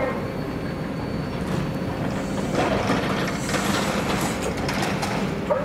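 A train running on rails: a steady low hum with clattering metallic clicks that grow louder and busier about halfway through.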